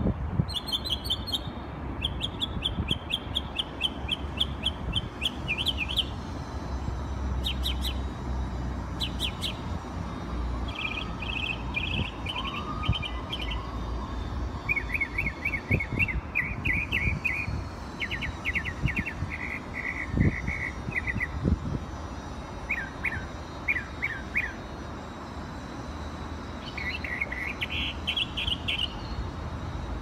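A songbird singing a long, varied song. Each phrase is a quick run of repeated high notes, and the song switches to a new phrase at a different pitch every second or two, with short pauses between some phrases.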